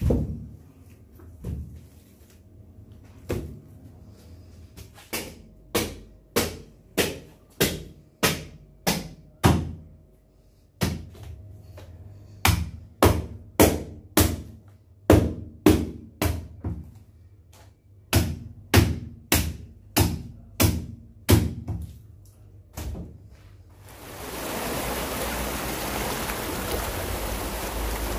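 Repeated sharp chopping thuds, a heavy blade striking about two times a second in runs of about ten with short pauses between. About 24 seconds in, a steady rushing noise begins.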